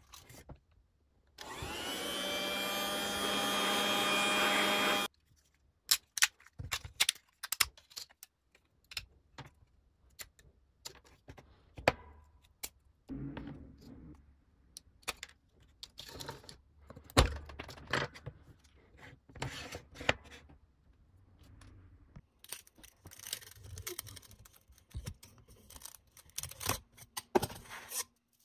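A small hand-held electric motor tool runs for about four seconds, its pitch rising slightly as it spins up and then cutting off suddenly, used to clear white stringing from a 3D-printed plastic case. A long run of irregular clicks, taps and snips follows as 3D-printed plastic parts are handled and support material is cut away with flush cutters.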